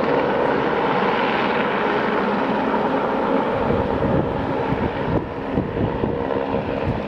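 Firefighting helicopter hovering low over a pond, its rotor and turbine running steadily while the water bucket on its long line fills. The noise is constant, with an irregular gusty rumble from about halfway through.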